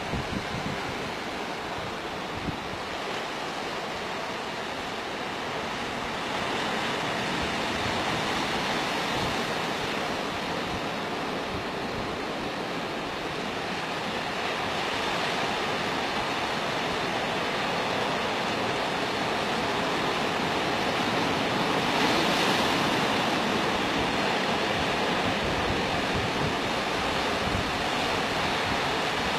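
Steady wash of sea waves on the shore, with wind noise on the microphone; it swells a little louder about two-thirds of the way through.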